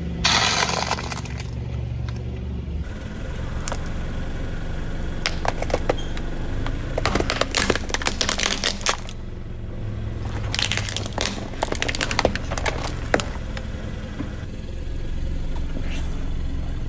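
A car engine runs low and steady as a tyre rolls over and crushes crunchy snacks and plastic toys. There is a short burst just after the start, then two spells of sharp crackling and crunching, about five to nine and ten to thirteen seconds in.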